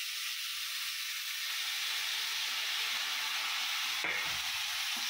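Chopped carrot and small onions sizzling in hot coconut oil in a wok, a steady frying hiss. A single light knock about four seconds in.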